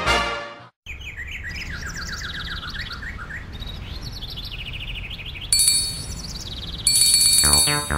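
House sparrows chirping in quick repeated runs of short notes over a low background rumble. Near the end a high ringing tone comes in, followed by music with a steady beat.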